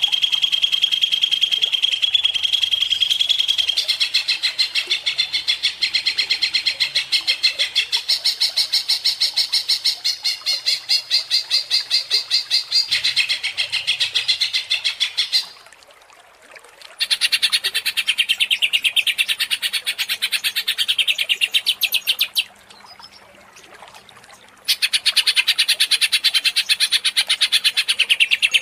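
Cucak ijo (green leafbird) singing its excited rapid-fire chattering song, a fast run of high repeated notes. It breaks off twice for a second or two about halfway and two-thirds of the way through, then starts again.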